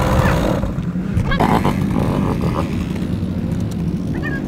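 Off-road motorcycle engine running strongly, then dropping to a low rumble about half a second in. A few short high animal calls come in near the end.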